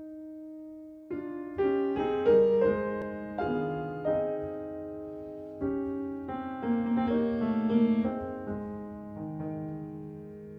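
Background music: slow solo piano. One note is held at first, then a series of notes and chords is struck about a second in, each fading away.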